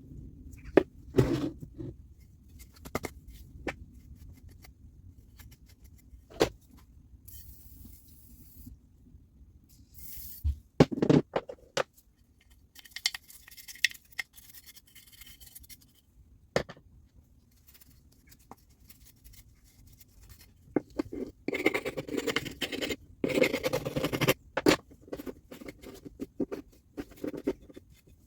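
Hand work at a repair bench: scattered clicks and knocks of tools and small parts being handled, with stretches of scraping or brushing about halfway through and again near the end.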